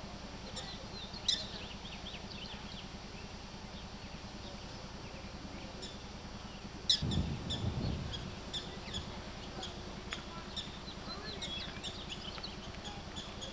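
Small birds chirping, with many short, high chirps scattered throughout over a steady low background hum. About seven seconds in there is a sudden low thump and rumble lasting about a second.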